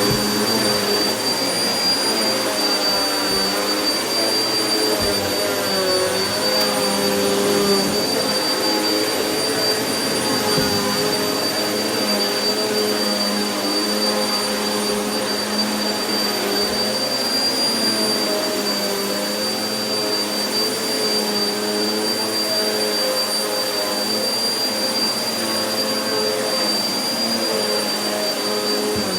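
Vacuum cleaner running steadily over carpet powdered with carpet freshener, a steady high whine over the motor hum, its pitch wavering slightly as the load on the motor changes.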